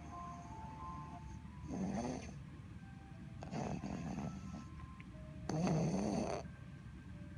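A sleeping one-year-old child snoring: three snoring breaths about two seconds apart, the last the loudest. Faint music plays softly underneath.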